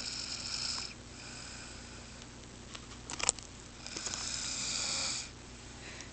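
A person snoring in her sleep: two long snoring breaths, one at the start and one from about four seconds in, with a fainter breath between them. A few sharp clicks come about three seconds in.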